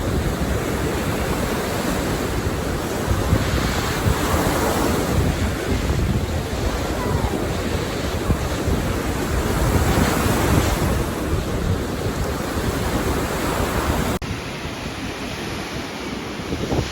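Waves washing onto a Lake Huron sand beach, swelling and easing every few seconds, with wind buffeting the microphone. Near the end the sound cuts abruptly to a quieter, duller wash.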